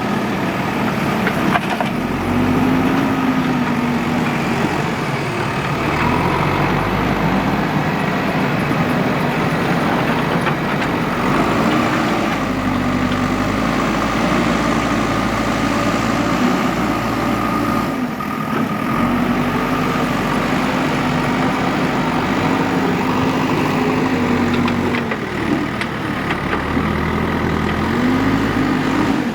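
Diesel engine of a JCB 3DX backhoe loader running steadily, its pitch rising and falling every few seconds as the engine revs up and settles.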